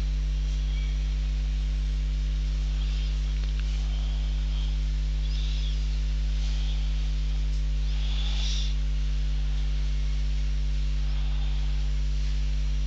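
Steady electrical mains hum, low and unchanging with a buzzy row of overtones, picked up by the recording setup. A few faint, brief scratches come through on top of it.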